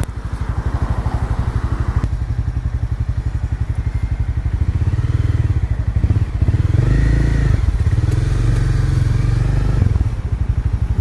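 Honda CB300F's single-cylinder engine running at low revs with a steady, even beat, growing louder and fuller about six and a half seconds in as the throttle opens.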